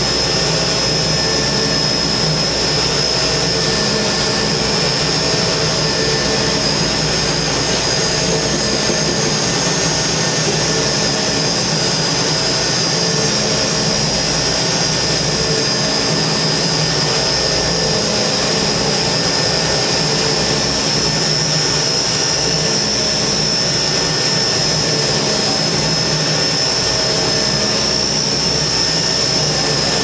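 Concrete plant machinery and a truck mixer running steadily while steel fibres are dosed into the mix. A loud constant drone with a high whine over a low hum.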